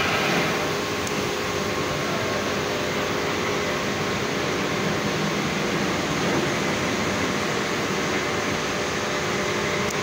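Steady industrial roar of blast furnace cast house machinery during a running cast, an even noise with a faint steady hum in it.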